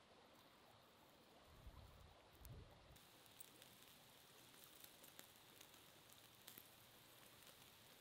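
Faint sizzling and crackling of marinated lamb pieces grilling in a wire grill basket over charcoal embers, with scattered small pops that come more often from about three seconds in. Two soft low thumps about two seconds in.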